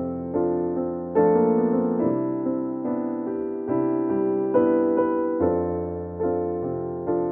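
Background music: a piano-type keyboard playing struck chords that fade, changing about once a second, over low held bass notes.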